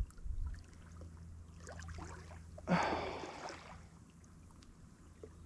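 Quiet lakeshore ambience: small waves lapping on the gravel and light wind on the microphone, with a short breathy rush of noise nearly three seconds in.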